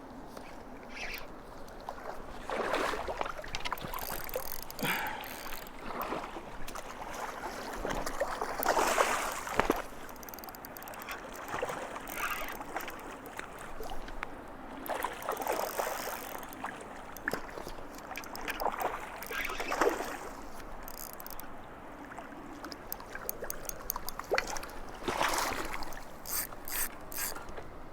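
Spinning reel being cranked in repeated spells, its gears ticking and whirring as a lure is retrieved, over the wash of a river.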